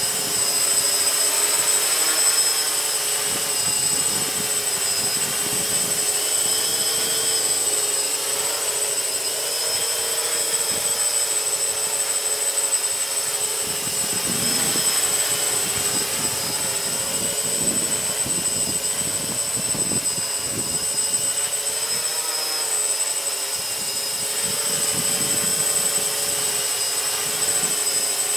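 Electric motors and propellers of an ArduCopter multicopter running steadily in flight, a layered whine that wavers slightly in pitch as the flight controller corrects. Gusts of wind buffet the microphone with low rumbling, strongest around the middle.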